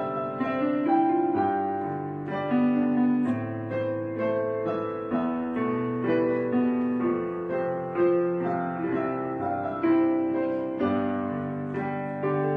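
Slow background piano music, a new chord struck every second or two and left to ring.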